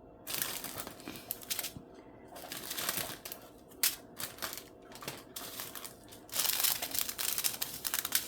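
Small plastic bags of diamond painting drills crinkling and rattling as they are handled, in several irregular bursts, with the longest near the end.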